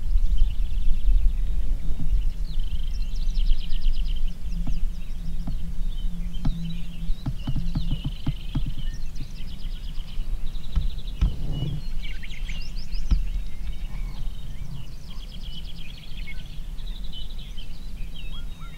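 Several songbirds singing trilled, repeating songs over a steady low wind rumble on the microphone, with a short run of soft clicks around the middle.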